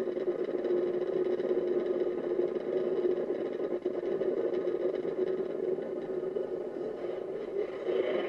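A car's steady driving drone, thin and tinny with no bass, as if played back through a small speaker and re-recorded.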